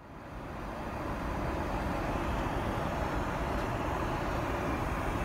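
Steady in-flight cabin noise of a Boeing 777, the even hum of engines and airflow heard from inside the cabin, fading in over about the first half-second.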